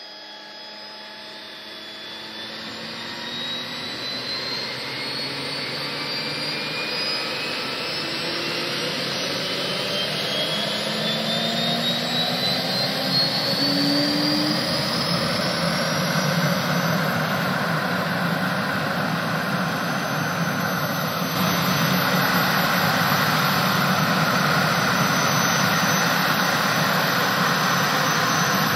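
Gas turbine engine of a 1968 Lotus Type 56 Indy car starting up: a whine that climbs steadily in pitch and loudness for about the first seventeen seconds as the turbine spools up, then holds at a steady idle with a rushing hiss.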